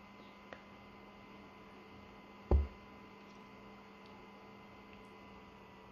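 Steady low electrical hum, broken by a single dull thump about two and a half seconds in.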